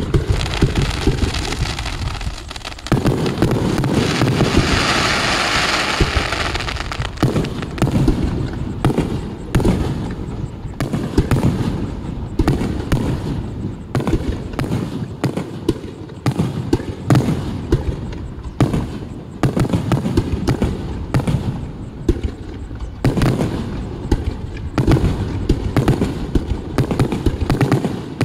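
Starmine fireworks barrage: a rapid, unbroken string of launch thumps and shell bursts, several bangs a second. About three to six seconds in, a hissing crackle sits over the bangs.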